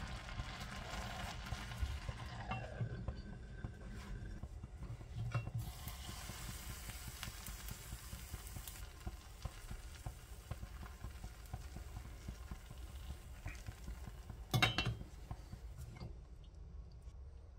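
Food sizzling in a pan while being stirred, with small utensil clicks and one louder clatter of a utensil on cookware about fourteen and a half seconds in.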